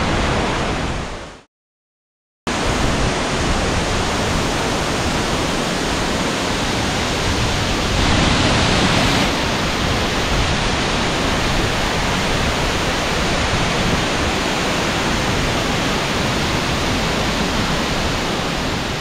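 Baker's Falls waterfall, a loud, steady rush of falling water. The sound cuts out completely for about a second near the start, then resumes unchanged.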